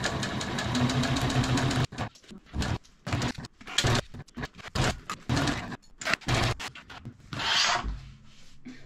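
Juki industrial sewing machine stitching a label onto suspender webbing: a steady run of fast stitching for about two seconds, then short stop-and-go bursts as the piece is guided and turned. A brief rustle of the fabric comes near the end.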